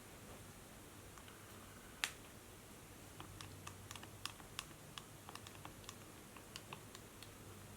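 Quiet typing on a laptop keyboard. A single sharp click about two seconds in is followed by a run of irregular key taps lasting about four seconds.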